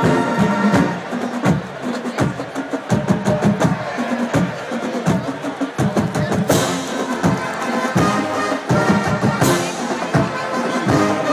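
College marching band playing: held brass notes fade out in the first second, then mostly drums and percussion in a driving rhythm, with two louder crashes about six and a half and nine and a half seconds in.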